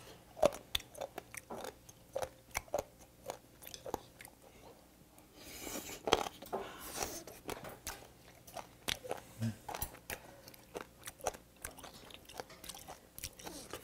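Close-miked chewing of braised warty sea squirt (mideodeok-jjim): a run of crisp, crunchy bites and wet mouth clicks, the chewy-crunchy texture the eater calls 'o-dok o-dok'.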